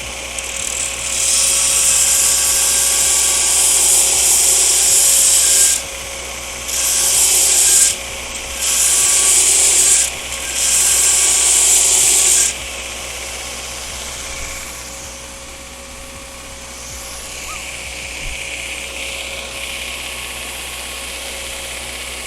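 Steel pressed against a running belt grinder in four passes, each a loud gritty grinding hiss lasting one to five seconds. After the passes, through the second half, only the steady running of the grinder and shop fans remains.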